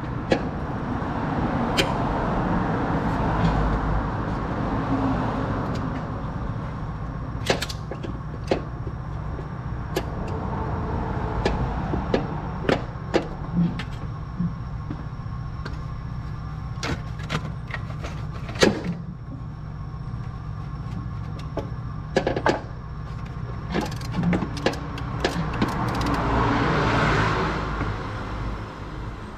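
Scattered sharp clicks and knocks of work on the car, over a steady low rumble with a wash of noise that swells near the start and again near the end.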